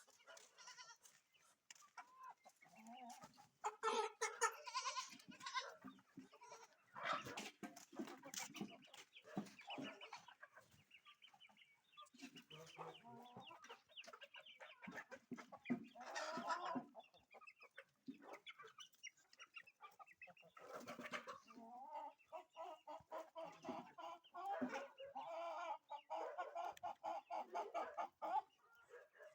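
Chickens clucking and calling on and off, a flock of hens with overlapping short calls.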